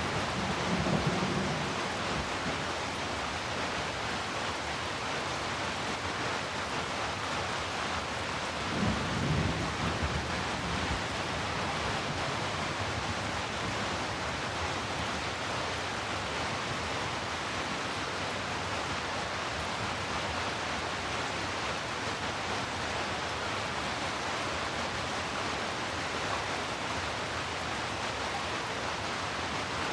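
Steady heavy rainfall, a dense even hiss mixed with a deep brown-noise tone. Low rumbles of thunder swell briefly near the start and again about nine seconds in.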